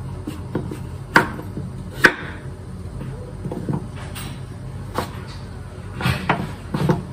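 Kitchen knife chopping pumpkin on a cutting board: a series of irregular knocks, the loudest two about one and two seconds in, with a quicker cluster near the end.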